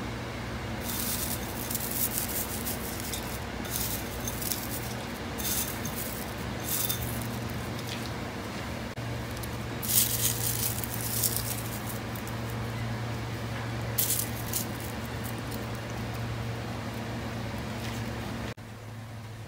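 Crisp fried onions and then chopped coriander scattered by hand onto parboiled rice in a steel pot: short soft rustling bursts, the loudest about ten seconds in, over a steady low hum.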